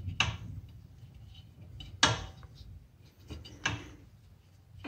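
Car jack being lowered slowly by hand: sharp metallic clanks about every one and a half to two seconds, as the car's weight is let down onto a block of wood to break a motorcycle tire's bead.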